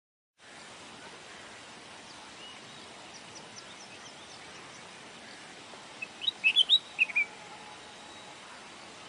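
Forest ambience with a steady hiss and a few faint high bird chirps, then a short burst of loud, quick bird chirps about two-thirds of the way through.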